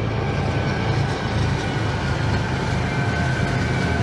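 Several diesel-electric freight locomotives passing at the head of a long container train, with a steady low engine rumble.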